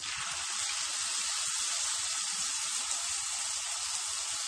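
Brick-pastry almond briouates deep-frying in hot oil in a wire frying basket: a steady, even sizzle.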